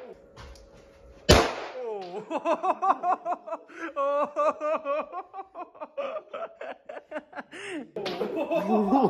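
A single pistol shot about a second in, loud and sharp with a brief ring-off, followed by a man laughing in short rising-and-falling bursts for several seconds.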